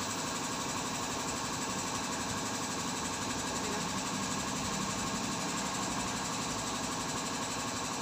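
A steady mechanical drone from a running engine or motor, holding at an even level with no distinct knocks or strikes.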